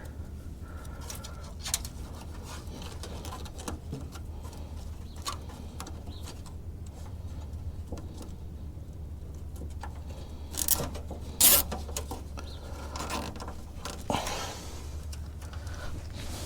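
Scattered clicks and rustles of hands fitting a nylon zip tie around wiring, the loudest pair about eleven seconds in, over a steady low hum.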